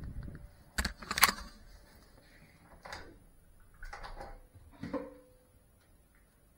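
A few clicks and knocks from the drone being handled by hand: two sharp clicks about a second in, then softer knocks near three, four and five seconds, the last with a short ringing tone. No motors are running yet.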